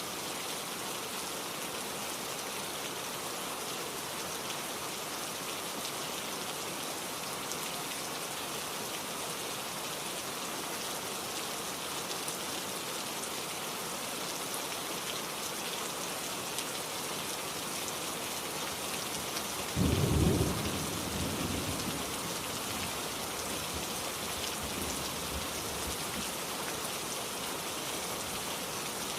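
Steady rain falling. About twenty seconds in, a sudden low thunderclap breaks over it and rumbles away over a couple of seconds.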